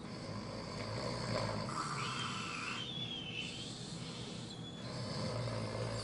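A toddler pretending to snore, in several fake snores one after another.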